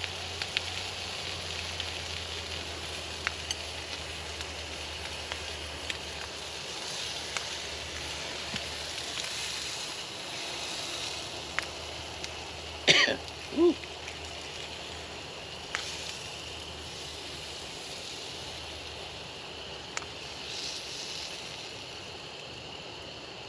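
A man coughs twice in quick succession about halfway through, over a steady hiss and a few light clicks.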